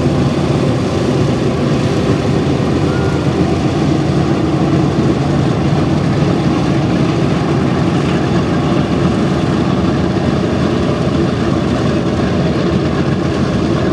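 Propeller aircraft engines running with a steady, unbroken drone.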